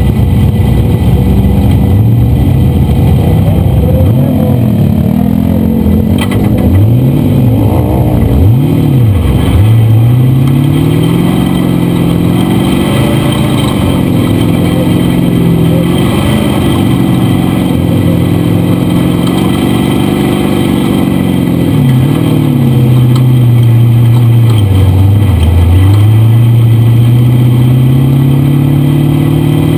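Dune buggy engine, heard from inside the open roll-cage cab, revving up and down as it drives over sand dunes: several quick throttle blips, then long pulls at high revs with a few brief dips as the driver lifts off.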